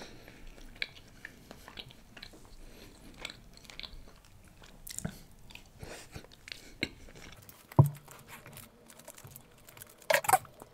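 Close-miked chewing of chicken biryani eaten by hand: soft, irregular wet mouth clicks, with a louder click about eight seconds in and a couple more near the end.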